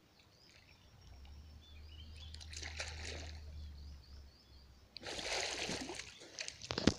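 Water splashing and sloshing in a lake, swelling louder about five seconds in and ending on a sharp knock. Faint bird chirps come at first.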